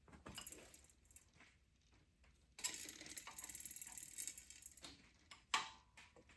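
Faint metallic clinks and scraping of a wrench working on diesel injector line fittings, with a sharper click about five and a half seconds in.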